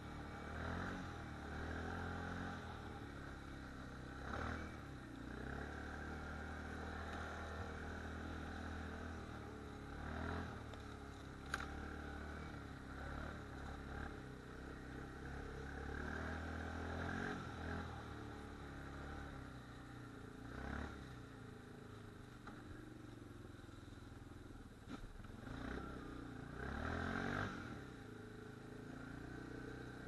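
ATV engine running under way, the throttle swelling and easing every few seconds, with a single sharp click about eleven seconds in.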